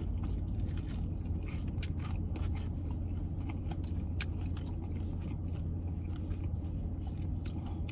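Chewing and biting into crispy fried chicken wings: irregular crunchy clicks, close to the microphone. Underneath is the steady low hum of a car's engine and air conditioning running, heard inside the cabin.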